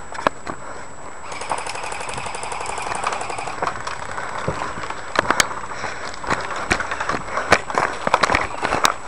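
Airsoft gun firing a rapid full-auto burst for about two seconds, a quick even rattle of shots. After it come irregular sharp clicks and snaps, like steps crunching on dry brush and gravel.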